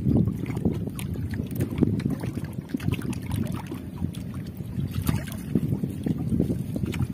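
Seawater sloshing and splashing around a person wading waist-deep beside a small boat, with water streaming from a scoop net as it is worked and lifted. Wind rumbles on the microphone throughout.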